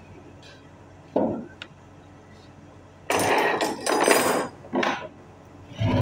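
Tools and metal parts being handled while a starter motor is dismantled: a sharp knock about a second in, then several louder bursts of clattering and scraping in the second half.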